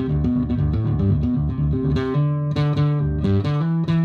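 1959 Fender Precision Bass played through a bass overdrive pedal into an amplifier. It plays a quick riff of short notes, then settles into longer held notes in the second half.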